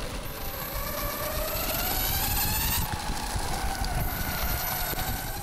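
Onsra Black Carve 2 electric skateboard's motors, driven by a Focbox Tenka VESC-based controller, whining and rising in pitch over the first three seconds as the board accelerates, then holding steady, over a steady rushing noise.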